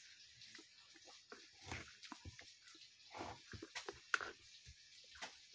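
Eating sounds: a spoon clicking and scraping against a bowl as rice and vegetables are scooped up, with chewing and small mouth noises between a handful of short, scattered clicks.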